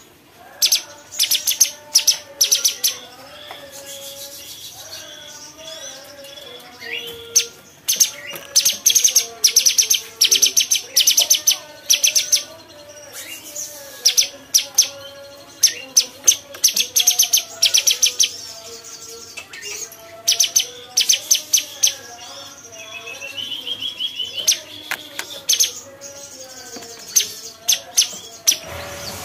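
Cucak cungkok, a bulbul, singing in rapid-fire bursts: loud runs of sharp, high, clicking notes a second or two long, repeated every few seconds, over softer, lower warbling. A short buzzy rising trill comes about three-quarters of the way through.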